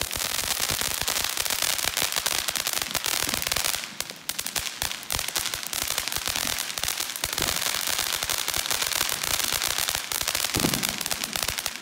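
Consumer crackling firework fountain going off: a dense, rapid stream of crackling pops from the stars it throws out, with a brief lull about four seconds in, stopping near the end.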